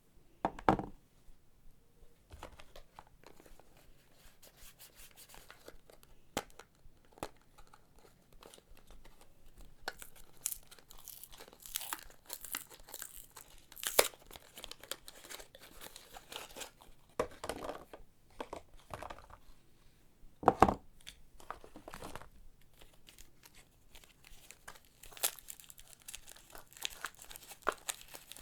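Soap packaging being unwrapped by hand, with wrapping tearing and crinkling in irregular bursts. A few louder short bumps come from handling, the strongest about a second in and about twenty seconds in.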